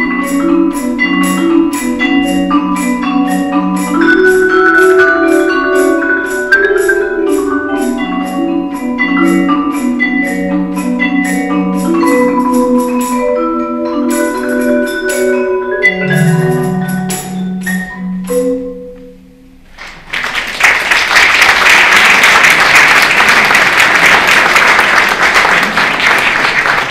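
Percussion ensemble playing a piece on marimba and vibraphone, with a tambourine shaken in a steady rhythm; the piece ends on a held note fading away about 19 seconds in. Audience applause follows about a second later and carries on to the end.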